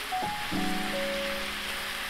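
Background music with held chords, a new chord coming in about half a second in, over the steady sizzle of a stainless skillet of ground beef, rice and vegetables frying as coconut aminos is poured in.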